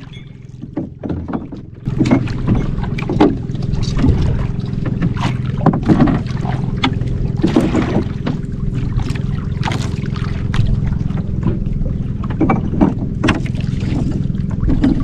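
Small engine of an outrigger canoe running with a steady hum, getting clearly louder about two seconds in as it speeds up. Water slaps against the hull and wind buffets the microphone throughout.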